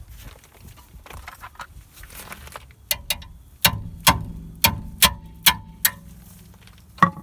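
Metal tools knocking and clinking on a car's front brake caliper while a 7 mm Allen key works on its hex bolts. After soft handling noises, about eight sharp knocks come at roughly two a second, each with a short metallic ring, and one more near the end.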